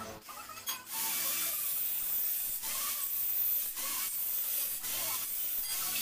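Angle grinder with a cut-off disc cutting through a rectangular steel tube: a steady, high-pitched grinding hiss that starts about a second in, with a few brief dips as the disc bites.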